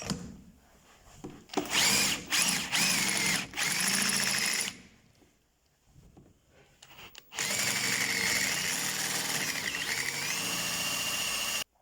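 Electric drill boring out the head of a stripped, seized screw in the bottom of a Yamaha XJ550 front fork leg: a few short bursts, a pause, then a longer run whose pitch dips and recovers as the bit bites. It stops abruptly near the end.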